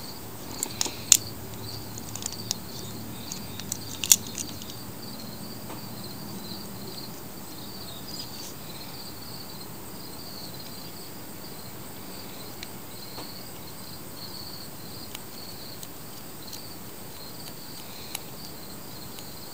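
Insects chirping steadily with a rapid pulsing trill, with a few sharp clicks in the first four seconds from the plastic starter handle and multi-tool pliers being handled.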